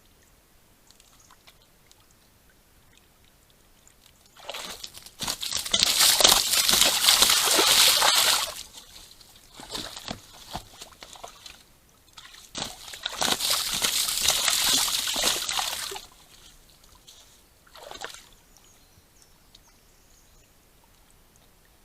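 Mud and water sloshing and splashing as a red deer stag moves in a muddy wallow, in two long bouts of several seconds each with a few shorter splashes between and after.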